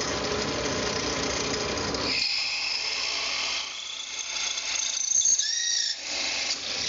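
Drill press running at 1700 RPM while a Colt parabolic-flute pen drilling bit bores into an acrylic pen blank. About two seconds in a high whine from the cut comes in, with a few short rising whines near the end.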